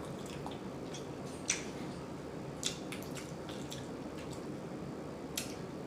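A few soft, wet clicks and squishes of eating with the hands and mouth, spaced out over several seconds above a steady low room hum.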